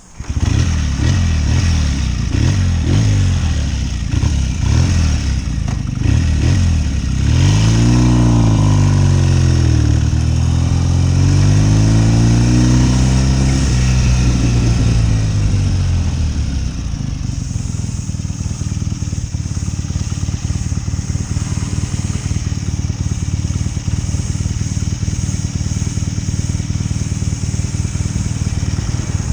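1972 BSA Lightning 650 parallel-twin engine, loud from the first moment, revved repeatedly with its pitch rising and falling through the first half. From about halfway in it settles into a steady run, with more hiss on top.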